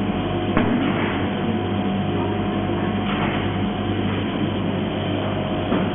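Wave soldering machine running with a steady electrical and mechanical hum, with a short click about half a second in and a brief rush of noise about three seconds in.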